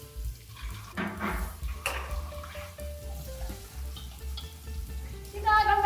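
Background music with held notes over a low pulsing beat, with crackling, sizzling noise and a couple of brief noisy sweeps. Near the end comes a loud, high-pitched, wavering cry.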